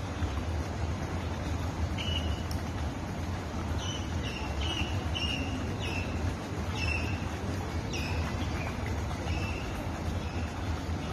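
Flamingos calling: a string of short, slightly falling calls, one about two seconds in and then about ten in quick succession, over a steady low rumble.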